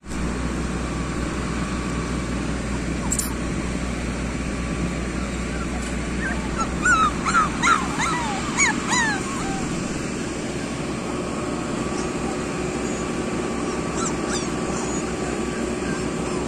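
Puppies whimpering and yipping: a run of short, high, wavering cries about halfway through, over a steady background noise.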